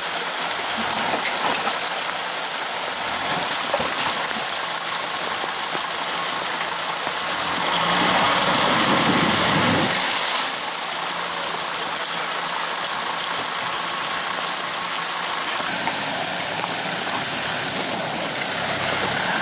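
Steady rush of creek water, with a Mercedes-Benz G-Class off-roader's engine running low beneath it as the vehicle crawls through the stream bed. About eight seconds in, a louder surge of splashing lasts two to three seconds as the wheels push through the water.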